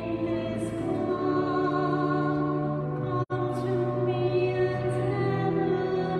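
A slow hymn sung with accompaniment in long, held notes over sustained low notes. The audio drops out for an instant about three seconds in.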